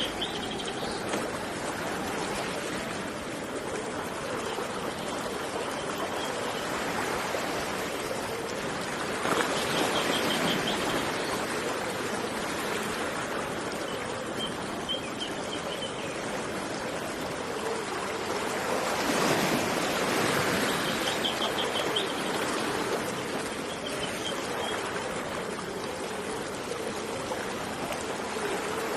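Steady rush of running water, swelling louder twice like waves surging in, with a small bird's short, rapid high trills repeating several times.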